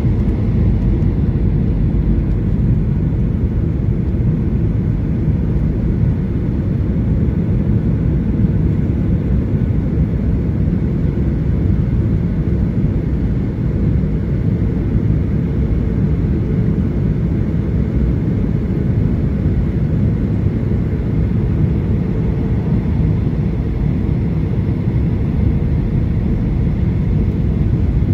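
Steady low cabin rumble of a Boeing 737-800's CFM56-7B turbofan engines and the airflow over the airframe, heard from a window seat on approach with the flaps extended, with a faint high whine above it.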